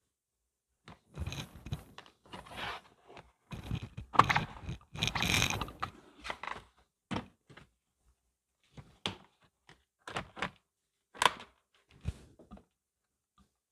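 Plastic interior trim panel of a Tesla Model 3 being pried and pulled off: rustling and scraping of plastic in the first half, then a string of short, sharp clicks as clips and fasteners come loose.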